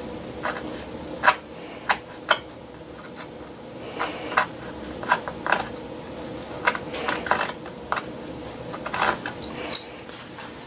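Razor knife cutting through thick felt, with irregular sharp clicks and short scraping crunches as the blade is worked along the cut.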